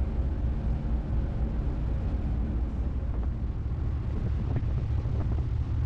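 Passenger ferry's engine running, a steady low drone with a few held tones and a steady hiss above it.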